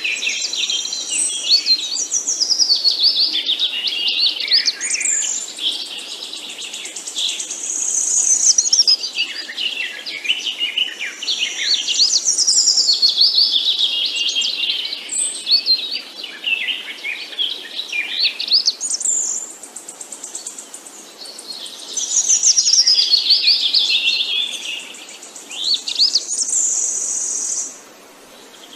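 Several small birds chirping and twittering together, with overlapping quick high-pitched trills and runs of notes that slide downward, swelling and easing in waves.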